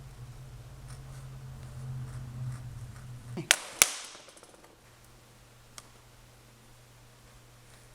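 A low, steady hum that stops abruptly about three and a half seconds in, followed at once by two sharp clacks of tools or wood being handled on the workbench.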